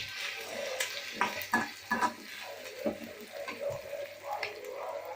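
Onions and capsicum sautéing in oil in a pan, with a metal spatula stirring them and knocking against the pan several times between one and three seconds in.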